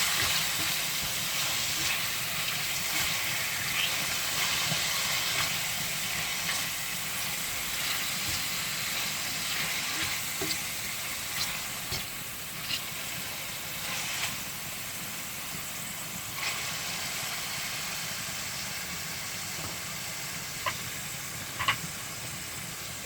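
Sliced pork chop frying in hot oil in a frying pan: a steady sizzle with scattered small pops of spatter, easing slightly toward the end as the meat browns.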